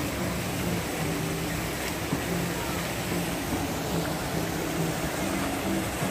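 Steady splashing hiss of fountain jets falling into a pond, with a faint low drone that comes and goes underneath.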